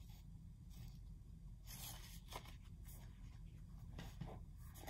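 Faint rustling and soft scrapes of paper picture sleeves and a 7-inch vinyl single being handled and set down, a few short brushes spread through the quiet.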